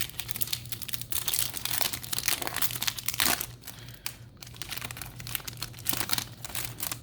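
Crinkling and rustling of a foil booster-pack wrapper and trading cards being handled, in dense irregular crackles over a faint steady low hum.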